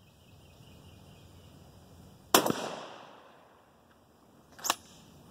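A single 12-gauge shotgun blast from a Rock Island Armory Meriva pump-action shotgun firing a 2¾-inch birdshot shell, with a long echo trailing off for about a second. About two seconds later there is a short sharp click.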